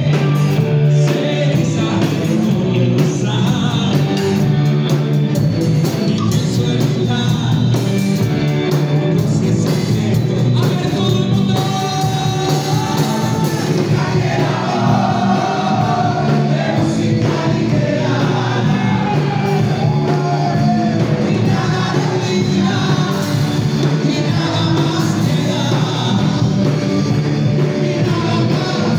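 Live band playing with a singer: electric guitar and drum kit under a sung vocal line, loud and steady.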